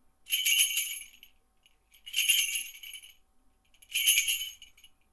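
Small bells jingling in three shakes, each about a second long and about two seconds apart.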